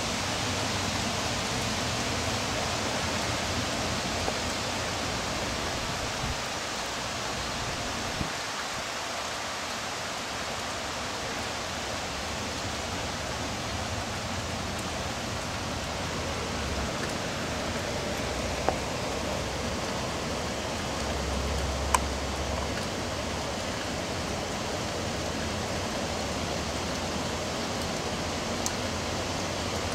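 Steady hiss of rain falling in a hurricane, with a few sharp clicks of drops or debris striking something.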